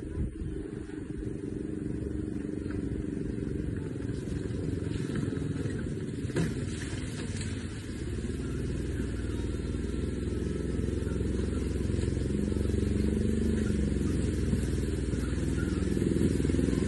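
Argo 6x6 amphibious ATV's engine running as the vehicle drives toward the listener, growing steadily louder as it approaches, with a single knock about six seconds in.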